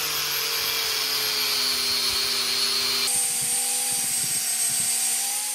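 Angle grinder fitted with a wire wheel running at speed against a wrought iron axe head, scouring off the last of the scale. A steady whine over a bright hiss, with the pitch shifting abruptly about three seconds in.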